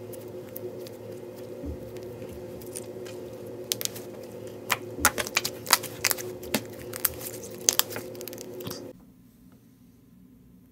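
Hands stretching and kneading soft slime, giving a run of sharp wet clicks and pops, densest from about four to eight seconds in. A steady background hum cuts off abruptly about nine seconds in.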